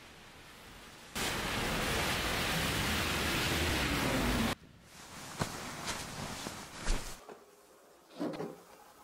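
Rain falling on a city street; a bus drives by on the wet road, with tyres hissing through the water and an engine rumble. Near the end comes a light thud as rubber rain boots are set down on a windowsill.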